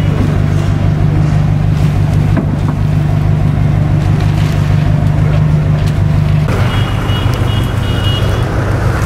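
An engine idling steadily with a low, even hum. The sound changes abruptly about six and a half seconds in, and a similar steady engine hum carries on after the change.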